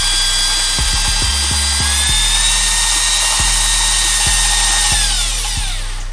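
Cordless drill with a fork chucked in as a mixer, whirring steadily as it stirs cream in a small jar, with occasional light knocks. Its pitch steps up slightly about two seconds in, then winds down near the end as it slows.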